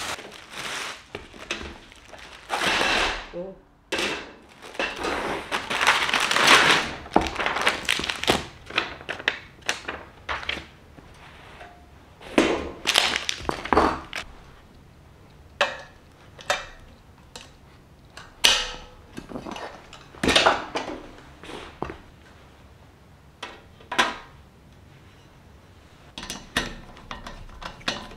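Plastic packaging rustling and crinkling while white metal wire-mesh organizer parts are unwrapped, with a string of separate knocks and clatters as the metal pieces are handled and set down on a wooden table.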